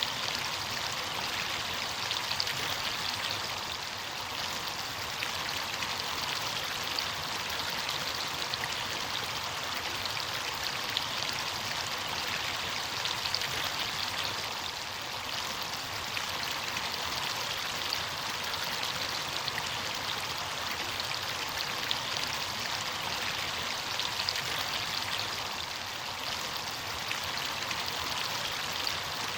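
Steady running water of a stream or small cascade, a continuous splashing rush with fine droplet ticks.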